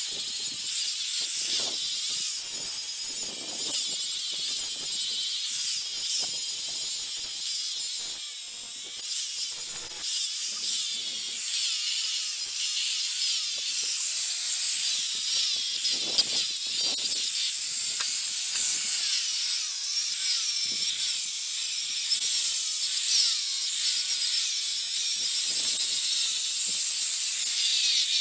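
Handheld angle grinder grinding the bottom of a steel snowmobile ski, metal on a spinning disc. It gives a steady, high-pitched hiss whose pitch wavers as the disc is pressed into the steel and eased off.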